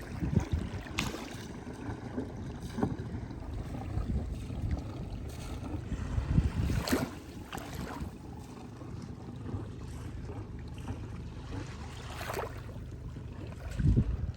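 Ranger Tug R-21EC running underway: a steady low rumble of water and wind on the microphone, with water splashing against the hull every few seconds and a heavier thump near the end.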